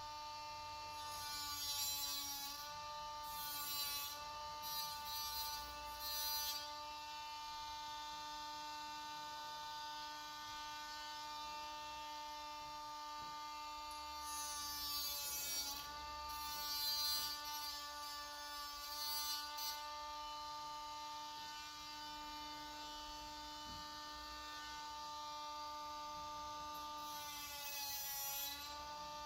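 Hot stapler plastic repair gun humming steadily as it heats staples to bond the honeycomb mesh into the grille frame. The hum dips and comes back a few times, and short bursts of hiss come every few seconds.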